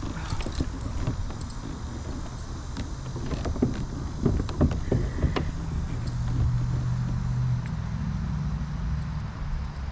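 Fishing reel being cranked as a hooked bass is reeled in to a kayak, with irregular knocks and clicks of rod and kayak handling in the middle and a steady low hum from about six seconds in.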